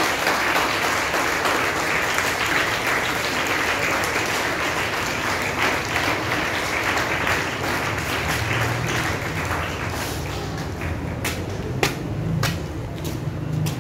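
Audience applauding, a dense steady clapping that thins out and fades about ten seconds in, followed by a few separate sharp knocks.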